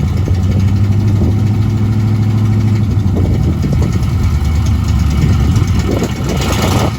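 1984 Dodge Ram pickup's engine idling steadily through a straight-pipe exhaust with no muffler.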